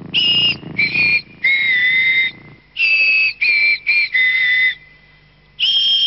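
A whistled tune: a quick run of clear, steady notes, each half a second or less, then a pause of about a second before one more note near the end.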